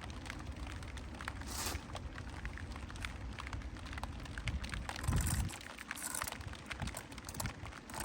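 Rain pattering on a hard surface: a steady hiss with many small sharp taps, and a dull low thump about five seconds in.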